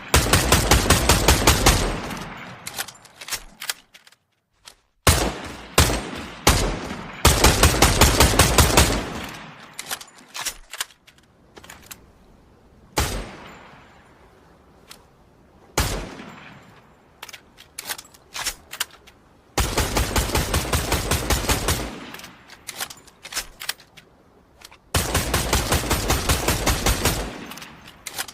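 FN FAL rifle firing: single shots and several long full-auto bursts, each shot followed by an echoing tail. The bursts come at the start, about 7 seconds in, about 20 seconds in and about 25 seconds in, with scattered single shots between them.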